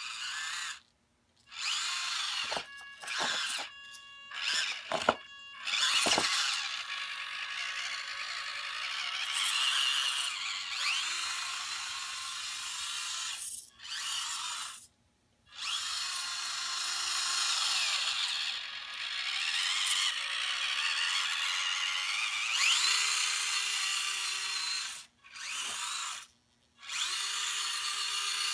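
Electric motor and gears of a Dodge L-700 scale radio-controlled truck whining as it drives, the pitch rising and falling with the throttle. The whine comes in stretches of a few seconds broken by short stops.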